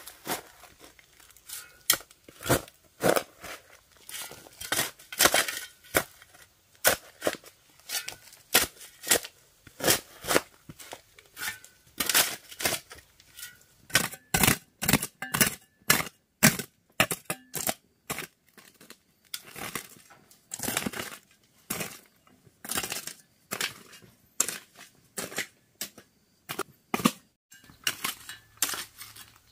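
Repeated sharp chopping and cracking strokes at an irregular pace of about one to three a second, some coming in quick clusters, with a tearing edge to several of them.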